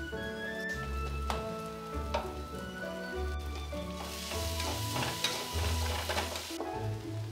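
Food sizzling as it fries in hot oil: a crackling hiss that swells up about four seconds in and drops away about two and a half seconds later, over background music with sustained notes.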